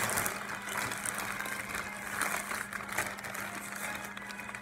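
Thin plastic shopping bag rustling and crinkling as hands rummage inside it.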